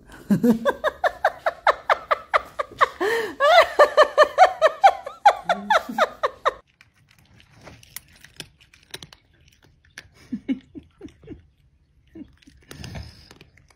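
A woman laughing hard in rapid high-pitched giggles for about six seconds. Then quieter scattered clicks and crunches.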